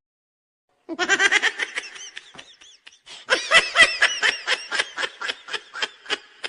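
Laughter in a long run of quick, evenly repeated high-pitched bursts, cutting in about a second in after dead silence, dipping briefly and coming back stronger.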